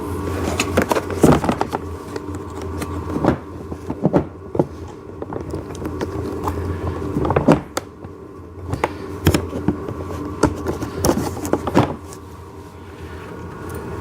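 Irregular knocks, clicks and scraping of plastic toy parts being handled as a small metal axle is worked through the bucket's pivot holes on a ride-on toy backhoe.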